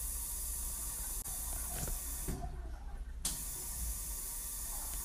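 Automatic sensor faucet running water into a restroom sink, a steady hiss that cuts off a little after two seconds in and comes back on about a second later.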